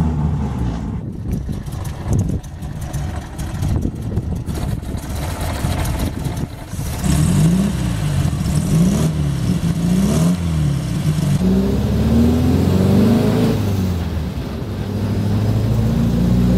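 1962 Volkswagen Kombi's air-cooled flat-four engine started on the key and running roughly at first, then revved up and down several times from about seven seconds in, and running more steadily near the end.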